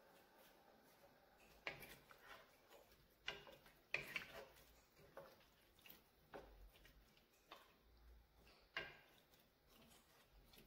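Wooden spoon stirring vegetables in water in a metal pot: faint, irregular clicks and knocks as the spoon hits the side of the pot, about nine in all.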